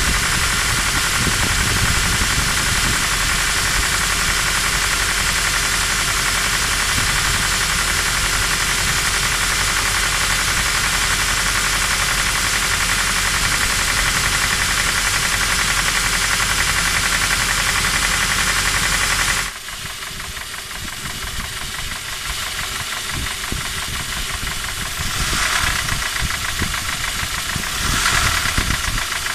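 Toyota 3RZ-FE 2.7-litre inline-four engine running with a steady knock from worn piston-pin (small-end) bushings in the connecting rods of cylinders 3 and 4. About two-thirds of the way through the sound drops abruptly and gets quieter, then builds again near the end.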